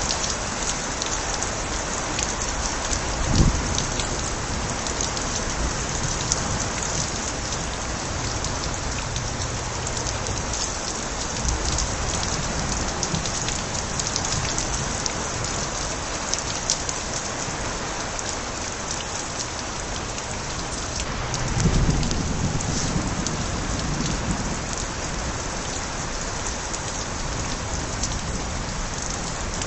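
Steady rain with water spilling from overflowing gutters and many close, crisp drips. There is a short low thump a few seconds in, and a low rumble of light thunder swells about three quarters of the way through.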